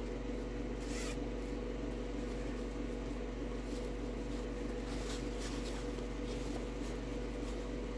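Steady low electrical hum in a small room, with faint rubbing and rustling as a cloth zipper makeup pouch is handled, a little more noticeable about a second in and again about five seconds in.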